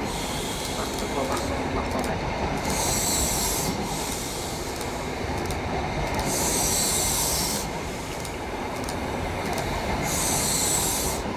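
Coaches of an HST (InterCity 125) rolling past along the platform, a steady rumble of wheels on rails. Three times, about every three and a half seconds, a hiss swells and fades.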